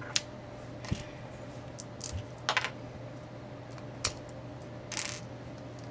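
Plastic Lego pieces being handled: a handful of short, irregular clicks and taps spaced about a second apart.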